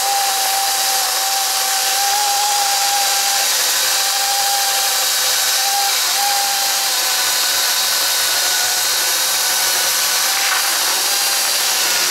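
EGO 56-volt battery chainsaw with an 18-inch bar cutting through a pine log under load. A steady high electric-motor whine sits over the hiss of the chain tearing through the wood, dipping briefly about halfway through.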